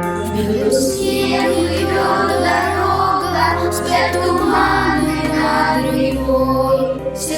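Music: voices singing a wordless or unclear line over a sustained instrumental accompaniment with a steady bass, the bass note shifting about halfway through.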